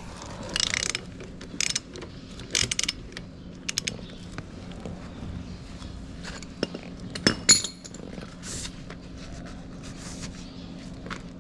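Irregular metallic clicks and clinks of hand tools being worked during a car oil change, over a steady low hum.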